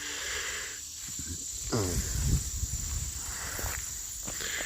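Insects, crickets, chirring steadily at a high pitch, with low rumbles and thumps of handling noise on the microphone, the strongest about two seconds in.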